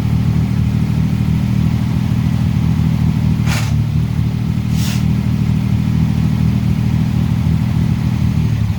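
1938 SS Jaguar 3½ Litre's straight-six engine running steadily, with two short hissing bursts about halfway through; the engine note drops right at the end.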